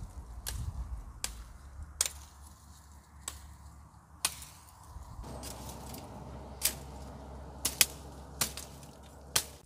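Machete chopping woody branches: sharp, irregular strikes, about nine in all, the loudest near the end.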